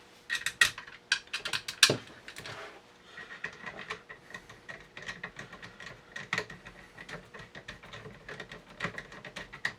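Small metal clicks and ticks of stainless steel shotgun parts being handled while screws are turned in by hand: a quick cluster of sharper clicks in the first couple of seconds, then lighter, irregular ticking.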